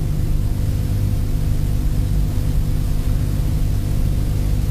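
Steady low hum with an even hiss over it, unchanging throughout: the recording's background noise, with no speech.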